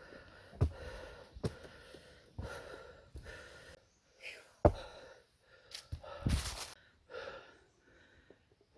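A person breathing hard, with several thuds of footsteps and a sharp, loud gasp about six seconds in.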